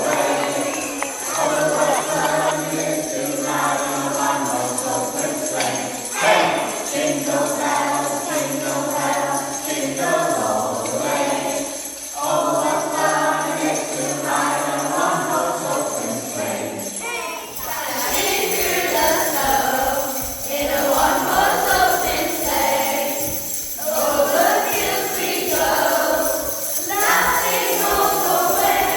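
Christmas music with jingle bells ringing, with no words sung.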